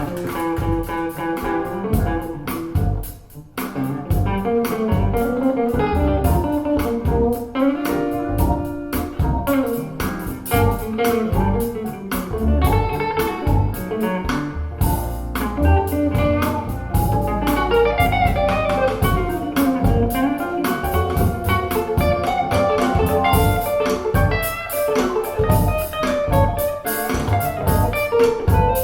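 Guitar-led instrumental music with a bass line, played back through a pair of PSB Alpha P5 bookshelf speakers.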